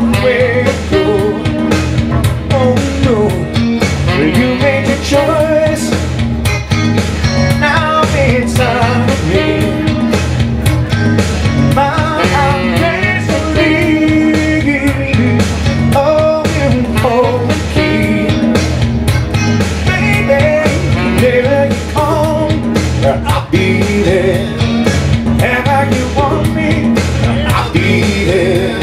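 Live rock-and-roll music: electric guitar and saxophone playing over a steady beat.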